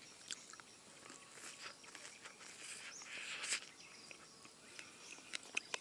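Faint biting and chewing on cooked corn on the cob: scattered small clicks, with a brief louder noise about three seconds in.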